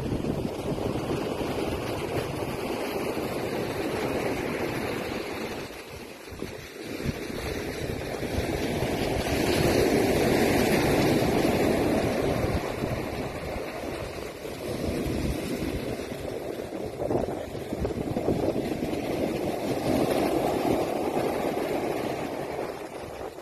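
Surf washing up a dark sand and pebble beach, swelling louder about ten seconds in and again near the end, with wind buffeting the microphone.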